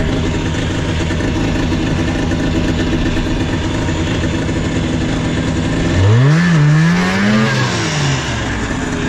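Yamaha Enticer snowmobile's two-stroke engine idling steadily. About six seconds in it is revved up twice in quick succession, the pitch climbing, dipping and climbing again, then dropping back to idle.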